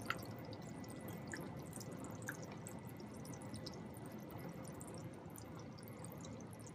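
Onion-tomato-yogurt curry gravy simmering in a pan: faint bubbling with a few soft pops in the first couple of seconds.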